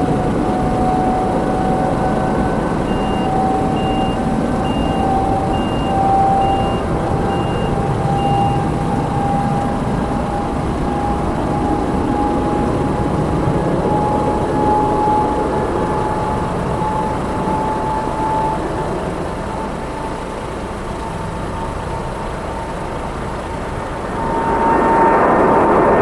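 Steady engine rumble carrying a whine that slowly rises in pitch. For the first several seconds a vehicle's reversing alarm beeps about every 0.7 s. About two seconds before the end a louder engine noise swells in.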